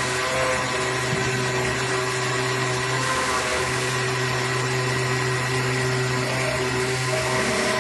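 AOKE DCZ70 CNC flatbed board cutter running as its cutting head travels across the board: a steady mechanical whir with a low hum and a few steady whining tones.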